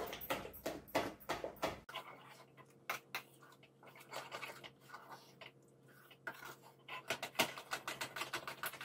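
A heavy spoon stirring thick, thickening urad dal batter in a steel pan, with rhythmic strokes about three a second. The sound changes abruptly about two seconds in. After that, the spoon scraping and tapping the pan comes as quick clicks over a faint steady hum, growing denser near the end.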